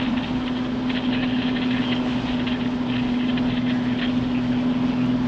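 Jeep driving at a steady speed through deep snow, heard from inside the cabin: a steady engine and drivetrain drone, with an uneven crackly hiss over it.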